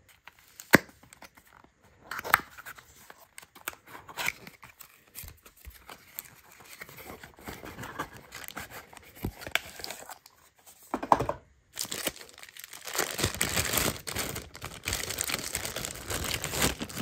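Cardboard packaging being handled and its end tab pulled open, with scattered clicks and scrapes. Then a clear plastic bag crinkles and rustles steadily for the last few seconds as the wrist rest is unwrapped.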